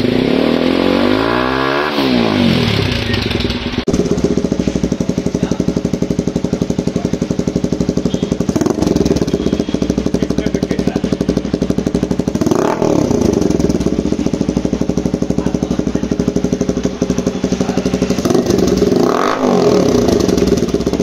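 TVS Apache RTR 200 single-cylinder engine running through aftermarket exhaust silencers: idling, with a quick rev up and back down near the start through an Akrapovic-branded carbon slip-on. About four seconds in the sound changes abruptly to a short black round silencer, idling steadily and blipped three times, each rev rising and falling.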